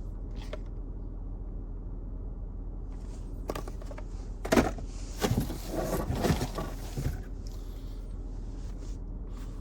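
Handling noises from tools in their packaging being moved: a cluster of rustles, clicks and knocks in the middle, the loudest knock about four and a half seconds in, over a steady low hum.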